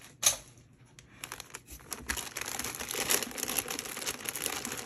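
Clear plastic kit parts bags crinkling as hands handle them. One sharp rustle comes about a quarter second in, then near-continuous crinkling builds from about a second in.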